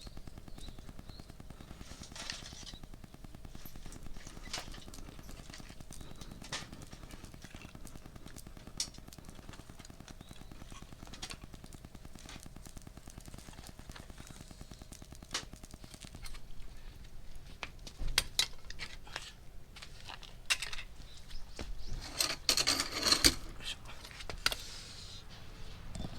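Wood fire crackling, with scattered sharp pops, thicker and louder in a cluster near the end.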